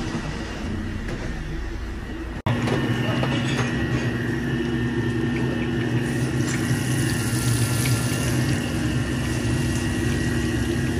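A steady machine hum with a hiss over it, resuming after a brief dropout about two and a half seconds in.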